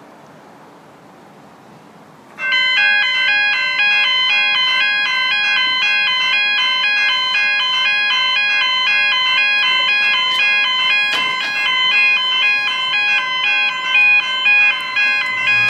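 Electronic level crossing warning bells start ringing suddenly about two seconds in: several high tones in a steady, repeating on-off pattern. The crossing has activated for an approaching train. Before that there is only faint outdoor background noise.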